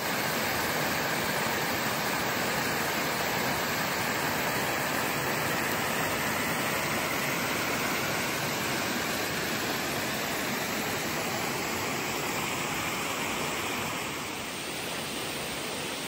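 Rushing whitewater of a small creek cascade pouring over rocks, a steady roar that eases slightly near the end.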